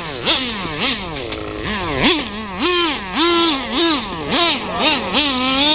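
RC car motor revving in quick throttle blips, its pitch jumping up and sliding back down about once or twice a second, with a few short stretches held at high revs.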